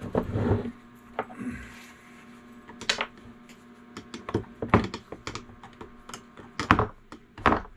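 A metal hand tool clicking and tapping against a lead-weight casting mold in a run of sharp, irregular knocks, over a faint steady low hum.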